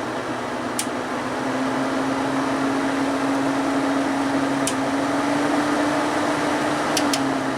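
Evaporator fan of a 1993 Kenmore 6,000 BTU window air conditioner running with a loud steady rush of air and a steady hum, a little louder from about a second in, with a few sharp clicks, the last two close together near the end.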